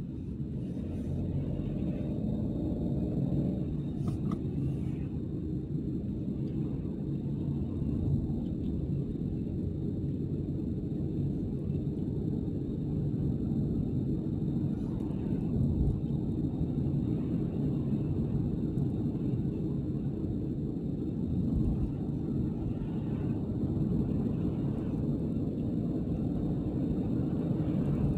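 Steady low rumble of a car driving along a road, its engine and tyre noise heard from inside the moving car.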